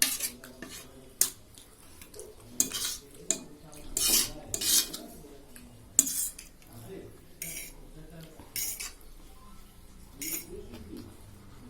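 Cutlery clinking and scraping against a plate at irregular intervals as noodles are scooped up, with sharp clicks and short scraping swishes.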